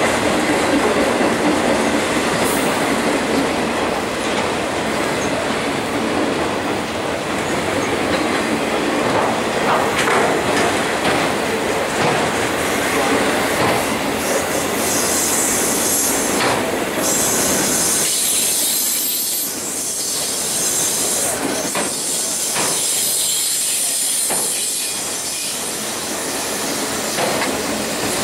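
A Union Pacific freight train of loaded autorack cars rolling past, its steel wheels running on the rails. A high-pitched wheel squeal comes in about halfway through and comes and goes until near the end.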